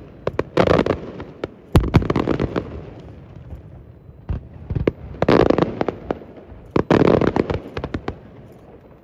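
Aerial fireworks exploding in volleys of sharp bangs, each volley trailing into crackle and echo, with a single loud crack just before two seconds in. The bangs thin out and fade over the last second or so.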